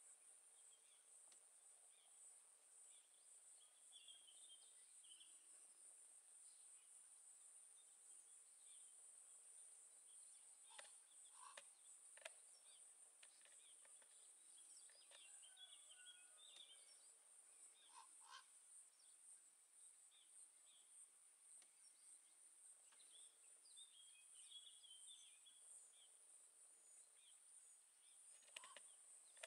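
Near silence: faint countryside ambience, with a steady high-pitched hiss, scattered distant bird chirps and a few soft clicks.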